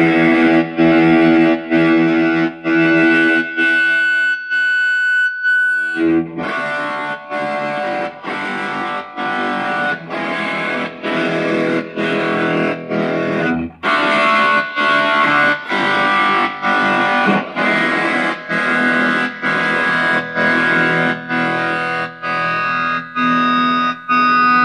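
Electric guitar chords played through a homemade 1-watt MOSFET light-bulb amplifier (the Pass Labs Zen bulb amp design), strummed in a steady rhythm with brief gaps between strokes.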